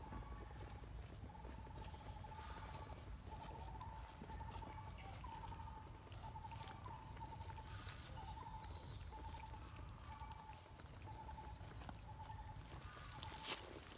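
A small animal's call: a short buzzy trill at one steady pitch, repeated about once a second, faint, over low outdoor rumble, with scattered light clicks and a sharper click near the end.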